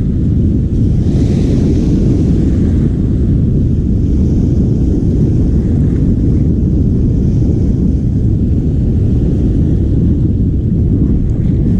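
Strong wind buffeting the microphone: a steady, loud, low rumble that covers everything else.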